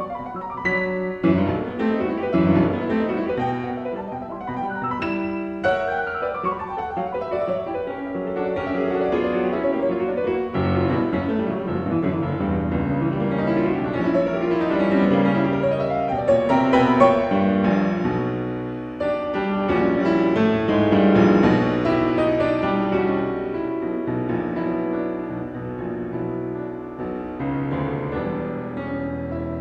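Piano music with running sequences of notes.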